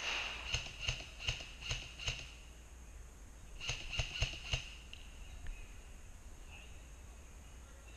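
Airsoft gun fired in single shots: five sharp cracks a little under half a second apart, then after a pause a quicker string of about five more.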